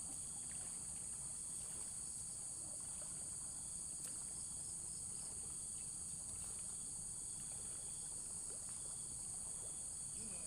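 Steady, high-pitched chorus of insects such as crickets or cicadas, with faint pulsing calls in the middle of the range. Beneath it is a low, even rumble of rushing floodwater.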